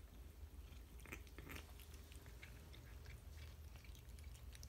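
Faint wet chewing and mouth clicks of a cat eating canned wet food, a scatter of soft ticks over a low room hum.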